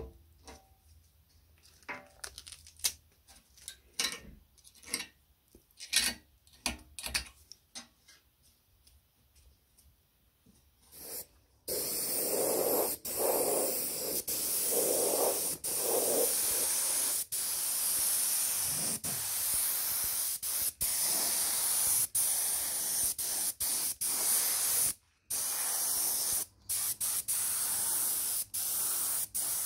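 Compressed-air gravity-feed paint spray gun spraying: a steady hiss that starts about twelve seconds in and breaks off briefly a few times as the trigger is let go. Before it, a stretch of light scattered taps and clicks.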